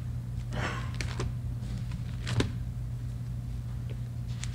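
Thin Bible pages being leafed through by hand: a few short papery rustles and a light tap about two and a half seconds in, over a steady low electrical hum.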